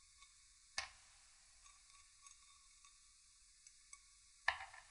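A spanner clicking against the steel cap nuts of a motorcycle connecting rod's big-end as they are worked: one sharp metallic click about a second in, faint small ticks, then a louder short clatter near the end.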